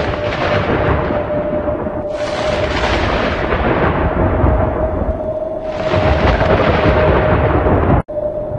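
Thunder sound effect over a steady droning tone. A rumble comes in suddenly about every three and a half seconds and fades away, and the sound cuts out briefly near the end.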